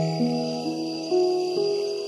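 Background music: a slow melody of held notes, moving to a new note about every half second.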